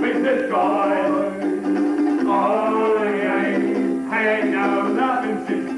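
Music with a voice singing phrases over held accompanying notes.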